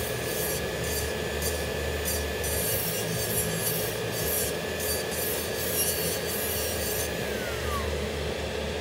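Electric nail drill (e-file) running with a steady high whine while its bit grinds at a fingernail in short repeated rasping passes. About seven seconds in, the whine falls away as the drill winds down.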